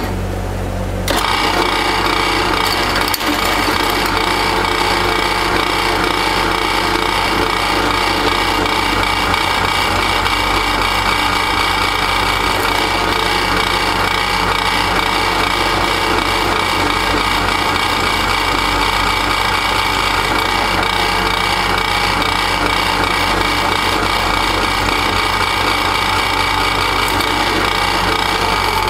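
Drill press running, its bit cutting steadily through a metal tube with a loud, harsh metal-on-metal cutting noise that starts about a second in, over the steady hum of the drill press motor. The holes being bored make the perforated inner tube of a glasspack muffler.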